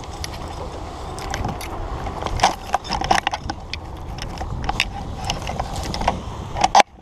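Irregular metal clinks and rattles from a paramotor harness's buckles, carabiners and riser hardware as the pilot walks over grass, with wind rumbling on the microphone.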